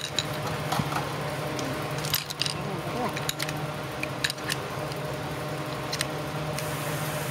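Steel sleeves clinking against each other and the metal of a cycloidal pinwheel reducer as they are set into its pin holes, a scatter of short sharp metal clicks over a steady hum.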